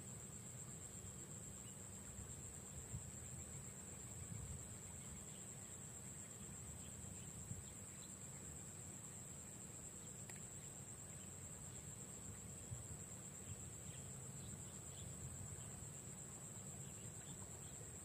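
Insects calling in one unbroken, steady high-pitched drone, faint, over a low steady rumble, with a few faint ticks.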